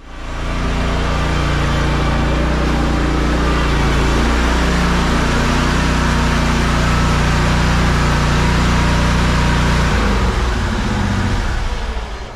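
An engine or motor running steadily with a low hum, then slowing and dying away about ten seconds in.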